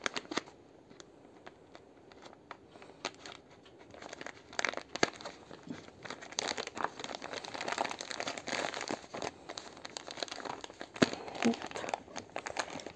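A small yarn packet crinkling and rustling as it is handled and worked open: a few light clicks at first, then dense crinkling from about four seconds in.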